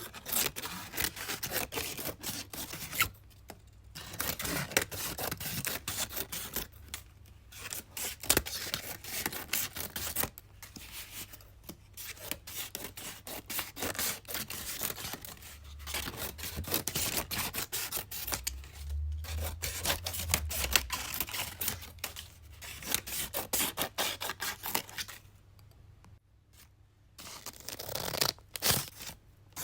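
Scissors cutting through paper in long runs of rapid crisp snips, pausing briefly every few seconds, over a faint low hum.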